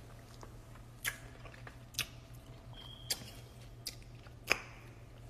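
Faint steady low hum broken by about five sharp clicks or smacks close to the microphone, roughly a second apart, the loudest near the end. A short high tone sounds just before the third click.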